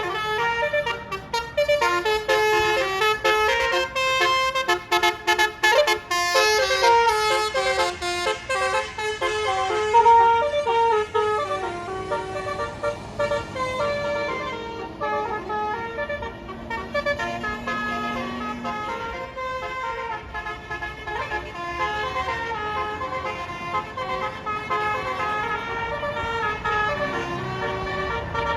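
Bus telolet horn playing a tune of quick, stepped horn notes that jump up and down in pitch. The loudest burst comes about ten seconds in; from about halfway through the tune goes on a little softer.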